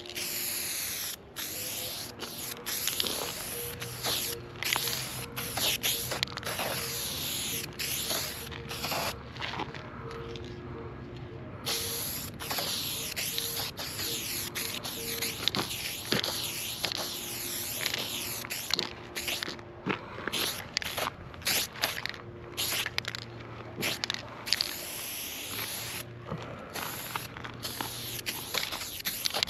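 Aerosol spray paint can fitted with a BIG Shotty ULTRA wide cap, hissing in a run of spray strokes that start and stop many times, with a longer pause around a third of the way in.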